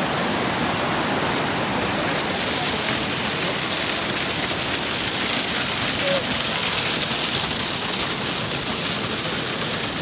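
Steady rush of water: river rapids over boulders, then a small waterfall splashing onto rocks and into a stony pool. The hiss grows brighter and slightly louder about two seconds in.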